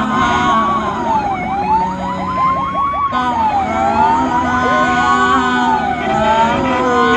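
Ambulance siren wailing in slow rising and falling sweeps about every one and a half seconds. A rapid yelping sweep overlaps it for the first three seconds or so. Steady road and engine noise runs underneath.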